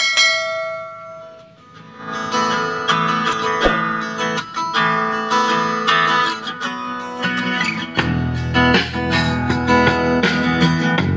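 Guitar-led instrumental music. A single bell-like chime rings out and fades at the start, the guitar music comes in about two seconds in, and a heavier bass joins near the end.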